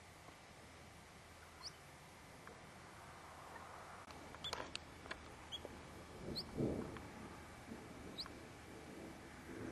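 Short, high, rising squeaks from a small animal, repeated about every two seconds, over faint wind hiss. A few sharp clicks and a brief rustling burst come about halfway through.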